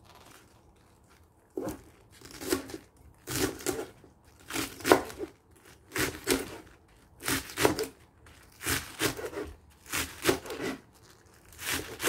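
Kitchen knife slicing through a bunch of scallions on a plastic cutting board, a crisp crunch with each stroke. Steady, unhurried cuts, roughly one or two a second, beginning about a second and a half in.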